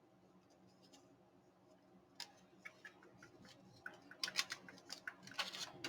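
Light clicks and taps of paper and card being handled, starting about two seconds in and coming quicker near the end.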